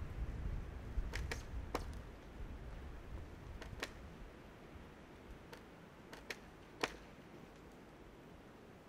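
About eight sharp clicks and snaps, spaced irregularly, over a low rumble that fades out about two seconds in.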